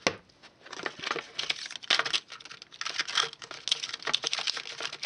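Clear plastic stamp case being opened and a sheet of clear stamps on its plastic backing handled. A sharp click at the start, then many small, crisp crackles and crinkles in quick succession.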